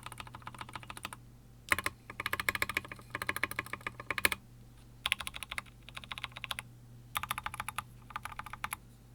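Typing on an Epomaker EP84 mechanical keyboard with lubed Gateron Ink Black linear switches, SA keycaps and an aluminium plate: quick runs of keystrokes in bursts with short pauses between, with a louder strike near two seconds in and another about four seconds in.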